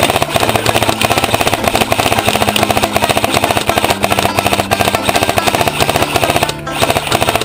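Airsoft electric rifle firing full-auto, a rapid stream of shots with a brief break about six and a half seconds in.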